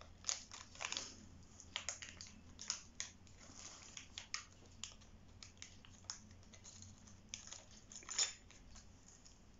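Small plastic packaging handled by hand: light, irregular crinkles and clicks, with a louder crackle about eight seconds in.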